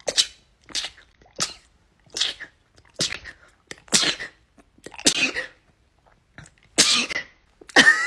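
A woman sneezing in a rapid fit: about eight sharp sneezes in a row, coming roughly a second apart, the last one longer.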